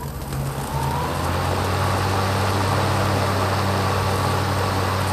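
Kobalt 40V brushless cordless lawn mower starting up: its blade spins up with a brief rising whine about a second in, then runs at a steady hum.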